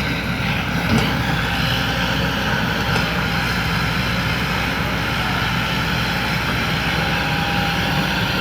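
Excavator's diesel engine running steadily, with a short click about a second in and another near three seconds.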